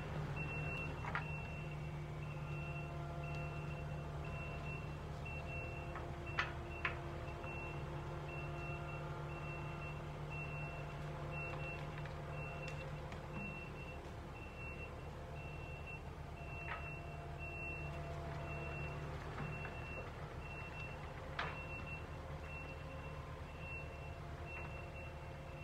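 Kubota skid steer's engine running under load while its reversing alarm beeps steadily and evenly as it backs up, towing a tractor. A few sharp knocks stand out, two close together about six seconds in and another near the end.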